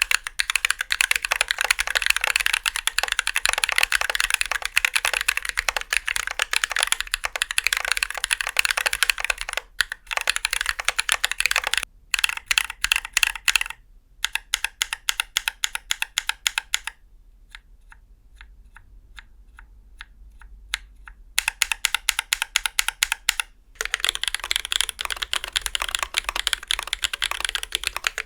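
Fast typing on a 50% custom mechanical keyboard with tactile switches, a dense run of clicky keystrokes broken by several abrupt cuts. A quieter stretch of slower, separate keystrokes runs from about 17 to 21 seconds.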